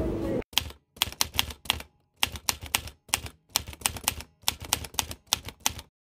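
Typewriter keys clacking in quick, uneven runs of strokes with dead silence between runs, the typing sound effect of on-screen text being typed out. It starts about half a second in, when the street sound cuts off abruptly, and stops suddenly near the end.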